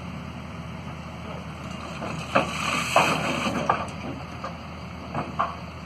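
Heavy metal clanks and scraping as a tracked machine shifts on a truck trailer, three loud hits with grinding between them about two seconds in and two smaller knocks near the end, over the steady running of a heavy diesel engine.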